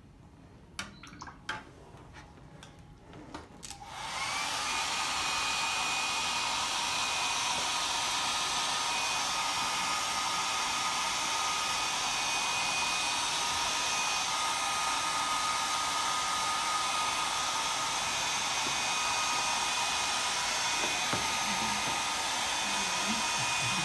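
A few light clicks, then about four seconds in a small handheld hair dryer switches on and runs steadily: an even blowing hiss with a thin, steady motor whine.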